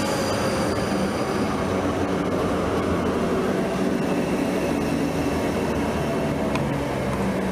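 South Western Railway electric multiple unit slowing to a stop at a platform: a steady rumble of wheels on rail with the whine of its electric traction motors falling and fading as it brakes.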